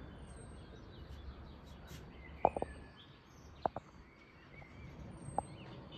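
Quiet outdoor ambience: faint distant bird chirps over a low rumble of wind on the microphone, with three brief knocks, the loudest about two and a half seconds in.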